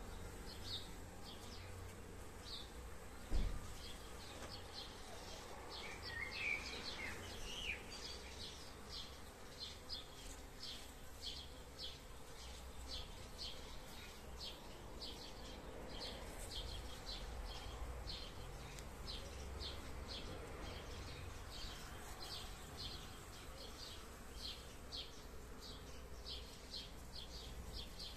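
Outdoor insect chirping: short, high chirps repeating steadily about twice a second. A bird gives a brief gliding call about six seconds in, a low wind rumble runs underneath, and a single loud bump comes about three seconds in.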